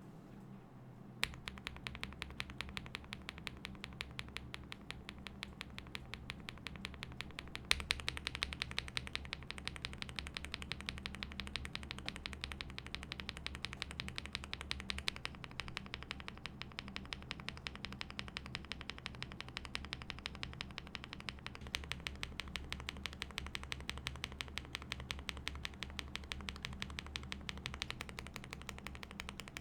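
Mechanical keyboard fitted with budget linear switches being typed on fast and continuously, a dense run of keystrokes starting about a second in. The character of the keystrokes changes about 8 s in and again near 22 s in.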